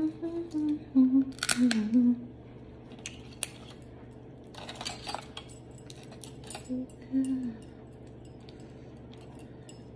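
Crab leg shells cracking and snapping as gloved hands break them apart, with a rustle about five seconds in. Short low hums in the first two seconds and again about seven seconds in.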